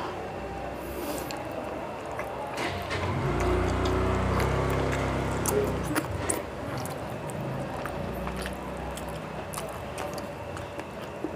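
Close-up eating by hand: rice mixed with fish curry and chewed, with many wet mouth clicks and smacks. A low steady hum swells for about three seconds partway through.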